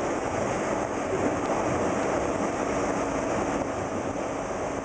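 Steady running noise inside a moving Metrorail rapid-transit car: the rumble of wheels on rail and the traction motors, with a faint steady hum underneath.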